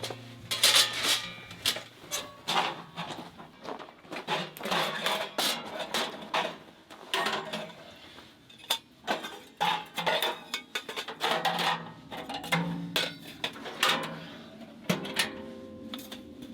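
Irregular clattering and knocking of hard objects being handled, like dishes or camp gear, with light music faintly underneath.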